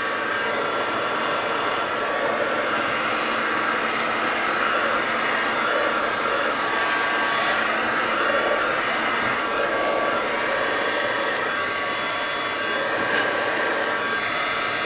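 Electric heat gun running steadily: a continuous rush of blown air with a faint steady whine. It is heating polystyrene foam pieces to roughen and harden them into rock shapes.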